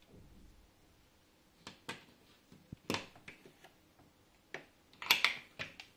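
A string of sharp clicks and taps of small plastic parts being handled and fitted over a panel-mount USB socket, as a 3D-printed protective cover is put in place. The loudest is a quick cluster of clicks about five seconds in.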